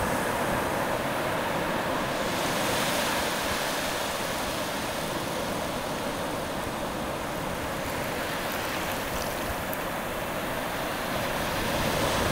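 Shallow surf washing over sand: a steady rushing of water that swells slightly about two seconds in and again near the end.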